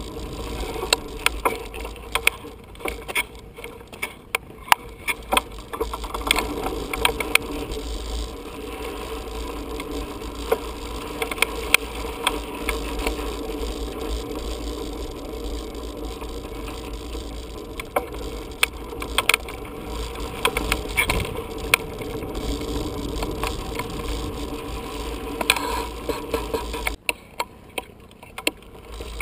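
Mountain bike rattling over a dirt jump track, with many sharp knocks and clatters from the frame and drivetrain on the bumps, over a low rumble of wind on the microphone. The racket eases off near the end.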